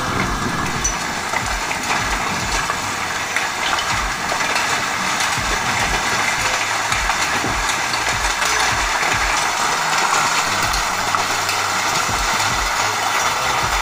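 Heavy rain pouring down in a storm, a loud, steady hiss. Underneath it runs a low, regular thudding about twice a second.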